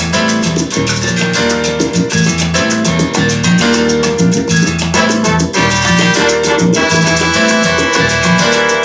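Upbeat music with a steady beat, bass line and percussion.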